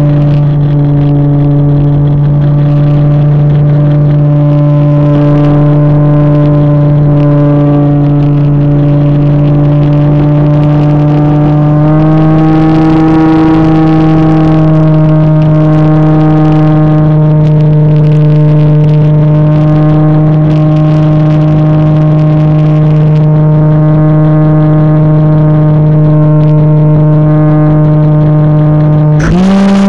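RC model plane's motor and propeller heard from the onboard camera: a loud, steady drone with a clear pitch. The pitch steps up slightly about twelve seconds in as the revs rise, and jumps higher for a moment near the end.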